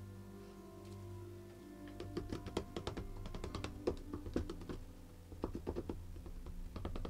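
Background music with steady tones. From about two seconds in, a run of light taps and clicks as plastic paint cups are handled and yarn is worked into acrylic pouring paint.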